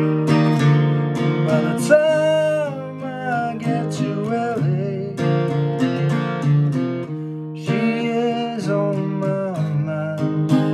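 Acoustic guitar with a capo played in a steady rhythm, with a man singing a few drawn-out phrases over it.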